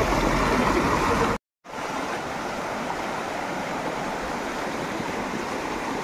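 Shallow forest stream rushing over rocks in a steady wash of water noise. It cuts to a sudden brief silence about a second and a half in, then resumes a little quieter.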